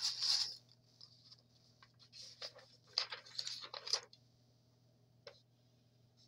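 A folded sheet of paper rustling as it is handled and opened out: a few short rustles, most of them between about two and four seconds in, then a single small click near the end.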